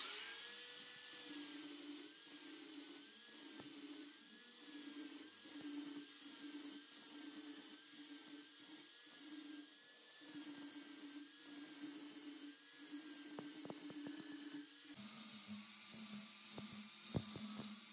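Electric angle grinder running with a high whine, its disc grinding the steel face of a hammer head and throwing sparks. The grinding noise rises and dips over and over, and the motor's pitch drops lower about fifteen seconds in.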